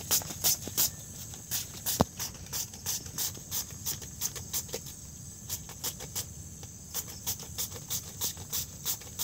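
Handheld plastic julienne shredder being drawn again and again through firm fruit flesh: rapid scraping strokes, about three a second, each a short rasp.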